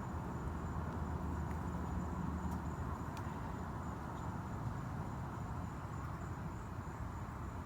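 Crickets chirping in a steady high trill over a low, steady background rumble, with a couple of faint clicks a few seconds in.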